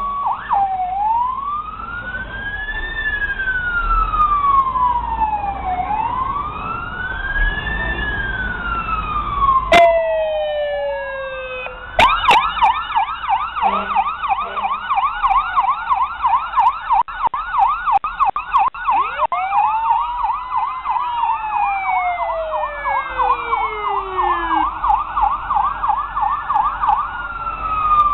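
Fire truck sirens: a slow electronic wail rising and falling every few seconds. About twelve seconds in, a fast yelping warble takes over, with a second slow wail overlapping it for a while.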